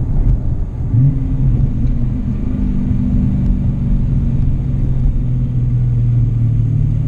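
Dodge Challenger Scat Pack's 6.4-litre HEMI V8 running while the car is driven, heard from the cabin as a steady low drone, with a brief rise in pitch about a second in.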